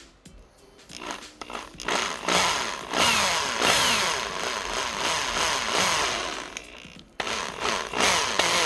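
Power drill with a 4 mm bit drilling out the rivet of a die-cast toy car, run slowly in bursts so that its motor speed keeps rising and falling. It starts about a second in, stops briefly near the end, then starts again.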